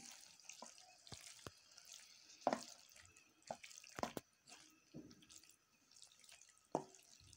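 Wooden spatula stirring wet cabbage mixed with yogurt in a pan: faint wet squelching with scattered, irregular taps and scrapes of the spatula against the pan.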